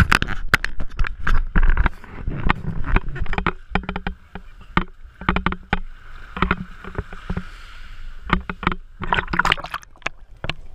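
Shallow seawater sloshing and splashing against a waterproof action camera's housing at the waterline, an irregular run of sharp splashes and gurgles over a low rumble. Near the end the camera dips under the surface.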